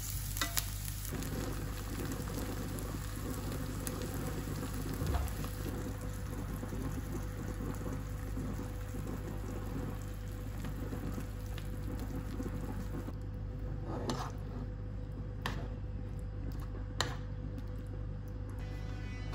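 Diced onion and chicken pieces sizzling in a nonstick frying pan, with a few sharp clicks of a metal spoon against the pan as the food is stirred.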